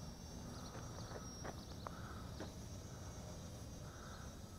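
Faint wind rumble on the microphone, with a thin, steady high whine and a few faint ticks.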